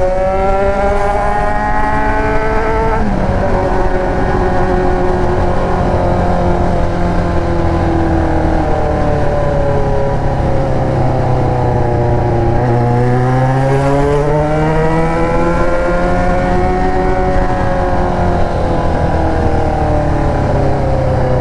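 Yamaha XJ6's 600 cc inline-four engine running loud through an aftermarket Atalla exhaust while riding, its pitch rising and falling with the throttle: it climbs over the first few seconds, drops, dips lowest a little past halfway, then rises and eases off again.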